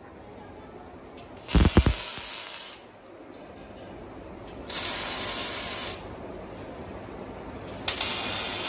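Automatic fan-blade welding machine striking three short arc welds, each a loud hiss lasting a little over a second, about three seconds apart, the first opening with a few sharp thumps. Between the welds there is a quieter steady machine noise.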